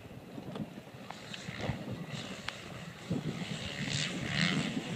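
Dirt bikes running off-road at a distance, their engines getting louder about three seconds in, with wind buffeting the microphone.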